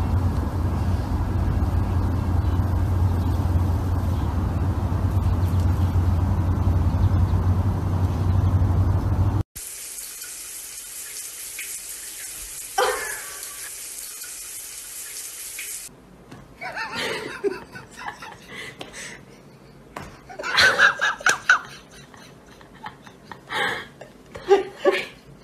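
A toilet flushing with a rush of water after a cat presses the wall flush button. Before it there is a steady low rumbling noise; after it come short bursts of voices and laughter.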